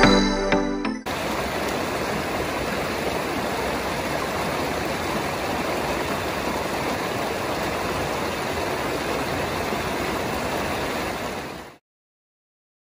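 A small rocky stream rushing and splashing over boulders in a steady wash of water noise, which cuts off suddenly near the end. Background music fades out about a second in, before the water starts.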